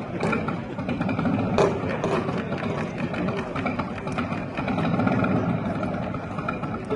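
An engine idling with a steady, motorcycle-like rumble.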